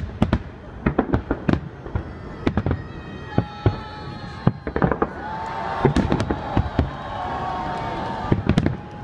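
Fireworks salute bursting overhead: a rapid, irregular string of sharp bangs, some in quick clusters, with steady tones sounding under the bangs in the second half.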